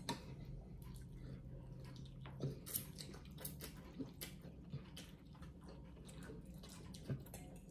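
Slurping and chewing of pho noodles and broth, with light clicks of chopsticks, spoons and a fork against ceramic bowls a few times a second.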